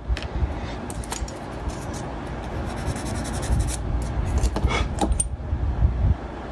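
Hands handling small plastic model-kit parts on a cutting mat: scattered light clicks and taps as a part is picked up and set down, over a low rumble of handling noise that stops near the end.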